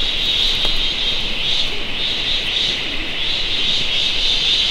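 Loud, steady high-pitched drone of a forest insect chorus, swelling and easing slightly every second or so.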